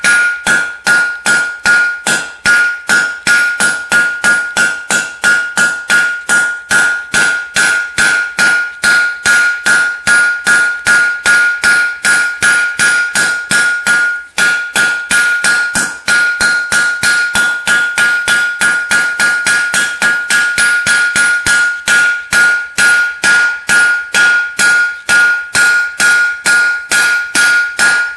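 Hand-hammer blows on a red-hot 3/8-inch round steel rod on an anvil, drawing out a long taper. It is a steady run of about three blows a second, each with a ringing anvil tone at the same pitch, with a short break about halfway through.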